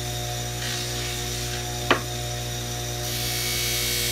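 Bench grinder motor running with a steady hum while a knife edge is polished on its buffing wheel. A single sharp click about two seconds in, and near the end a steady hiss sets in as the blade is pressed against the spinning buffing wheel.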